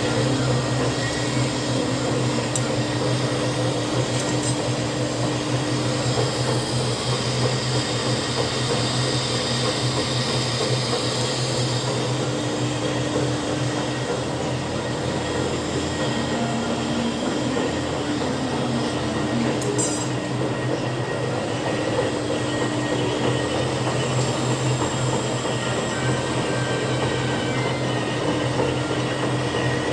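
Lathe running steadily, a continuous machine noise with a low hum throughout.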